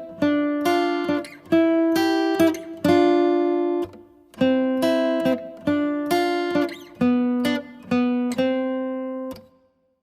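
Background music: plucked acoustic guitar playing a melodic phrase of ringing notes, pausing briefly after about four seconds, then fading out near the end.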